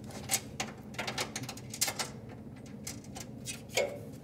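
Irregular light clicks and taps as bolts are started by hand into the base plate of a vending machine's compressor deck, bolt against sheet metal.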